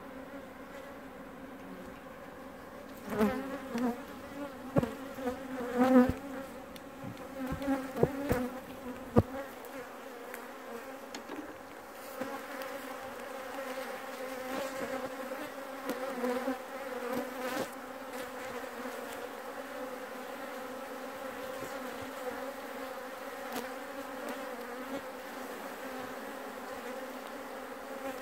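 Honeybees from a wild colony buzzing thickly around comb being cut out of a tree hollow and moved into a hive, a steady low hum. Several sharp knocks and bumps between about three and nine seconds in.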